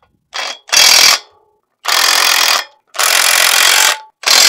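Milwaukee M18 Fuel mid-torque cordless impact wrench hammering in about five short bursts, a fraction of a second to a second each with brief pauses between, as it runs down and tightens the nuts holding a drill's main opener bracket to the frame.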